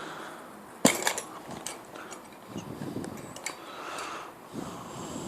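Hand handling of a Wabco air suspension compressor as the air dryer is pulled off its cylinder head: one sharp knock about a second in, then light clicks and rustling of the parts being worked apart.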